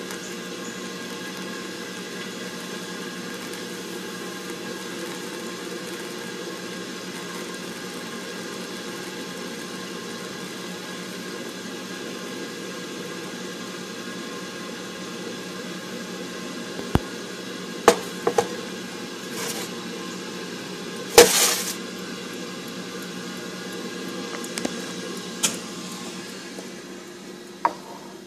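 Steady hum with a faint hiss from a Londinium L1 lever espresso machine while a single shot pours. A few sharp clicks and knocks come in the second half, the loudest about three-quarters of the way through.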